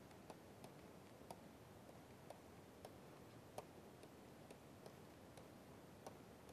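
Faint, irregular light clicks of a stylus tapping on a pen tablet while handwriting, about two a second, over a low steady hiss.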